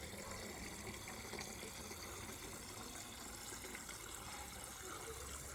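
Water running steadily from a tap into a container: a faint, even flow.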